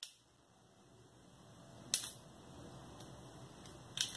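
Metallic clicks of a Bersa pistol's action being worked by hand in a function check with an empty magazine: a sharp click about two seconds in, and a couple of lighter clicks near the end.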